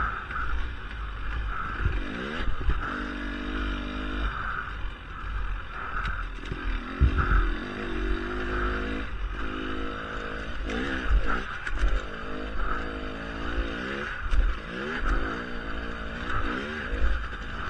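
Dirt bike engine under riding load, its revs rising and falling again and again as the throttle opens and closes. A steady low rumble and a few sharp thumps run beneath it.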